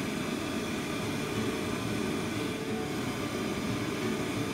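Steady, even mechanical whir like a running fan, heaviest in the low range with a faint hiss above.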